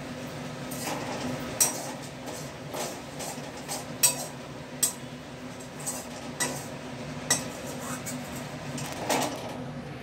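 Metal utensils and dishes clinking and scraping as a cook handles pots and bowls, with about six sharp clinks spread through, over a steady low hum.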